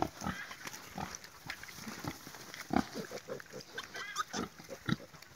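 Sow and her three-week-old piglets grunting while nursing: short, low grunts at irregular intervals, with a brief higher squeak about four seconds in.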